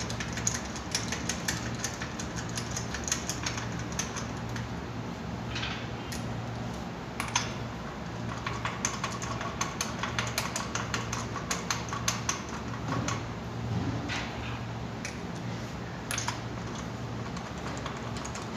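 Lug nuts turned by hand on a car wheel's studs, giving many small irregular metallic clicks and ticks, over a steady low hum.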